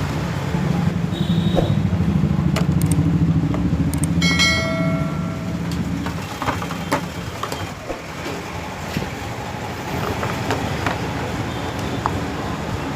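LG fully automatic washing machine running with a steady low hum that eases off after about six seconds, followed by scattered clicks and knocks. Two short beeps sound in the first five seconds.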